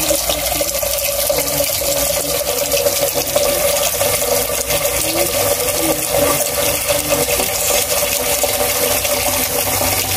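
Tap water pouring in a steady stream into a stainless steel pot, splashing into the water already in it as the pot fills.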